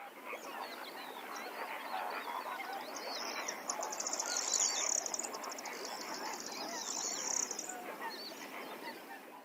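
A dense chorus of many birds calling at once, full of short overlapping chirps, with a rapid high trill running through the middle of it from about three seconds in to nearly eight.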